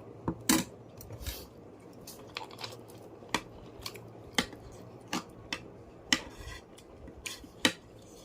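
Cutlery and dishes clinking during a meal: about ten sharp, irregular clinks.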